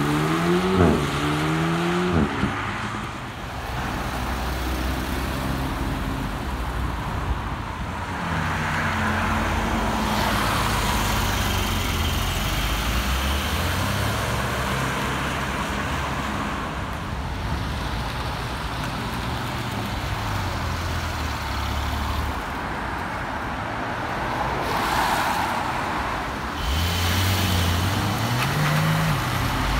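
Sports cars pulling away one after another: an Alpine A110 and then Porsche 911s accelerating, with engines revving up in rising pitch and shifting gears. Steady road traffic runs underneath.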